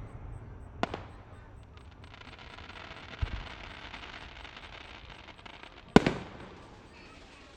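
Fireworks sound effect: a sharp bang about a second in, a dull low boom a couple of seconds later over a crackling hiss, then the loudest bang near the end with a short fading tail.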